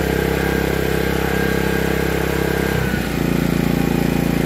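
Heomaito HMT3500iD dual-fuel inverter generator running on gasoline on its first start, with a steady, smooth engine note. About three seconds in, the engine settles at a different speed and runs a little louder.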